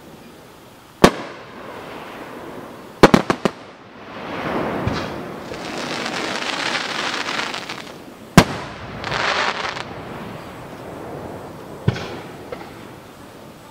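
Aerial firework shells bursting, heard from about 190 m away: a sharp bang about a second in, a quick run of four bangs around three seconds in, another loud bang past the middle and a smaller one near the end. Between the bangs come longer swells of hissing crackle.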